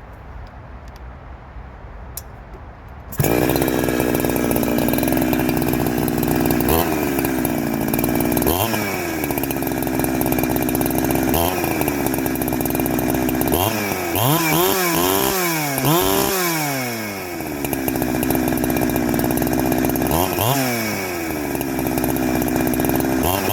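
Chainsaw fitted with a shotgun muffler comes in abruptly about three seconds in and idles, blipped up to revs about half a dozen times, with a quick run of blips in the middle. After each blip the pitch sinks back slowly and lazily to idle, which the owner takes for the low-speed jet running lean and needing more fuel.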